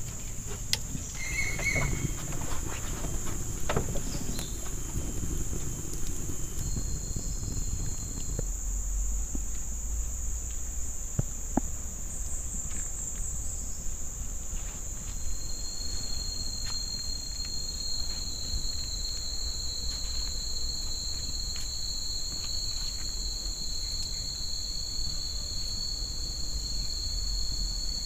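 Jungle insects droning in one steady high-pitched tone, with a second, lower insect tone joining about halfway through. A few faint clicks and knocks come in the first few seconds.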